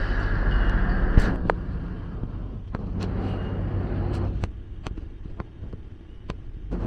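Street traffic: a low steady rumble with vehicles passing twice, the first near the start and the second around the middle, and scattered sharp clicks and knocks throughout, the loudest about a second in.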